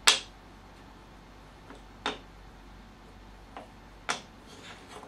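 Small white oak box sides knocking against each other and the tabletop as they are handled and stacked: a few sharp wooden clicks, a second or two apart, the first the loudest.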